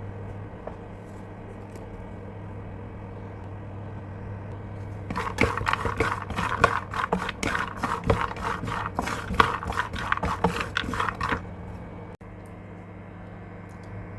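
Almonds and walnuts being stirred in a pan, nuts clattering and scraping against the metal for about six seconds in the middle, over a steady low hum.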